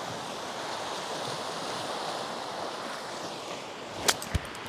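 A golf club chips a ball buried in thick grass: one sharp crack of the strike about four seconds in, then a dull thump just after. Steady ocean surf and wind run underneath.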